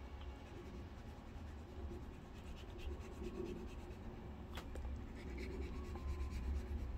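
Faint scratching and rubbing of a small hand file scraping the rubber surface of a worn VCR roller, roughening the glazed rubber so it grips again. A low steady hum runs underneath.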